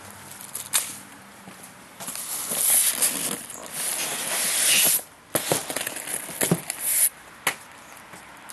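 Cardboard box being handled and its contents shifted: a tap, then a few seconds of loud scraping and rustling, then a run of sharp knocks and taps.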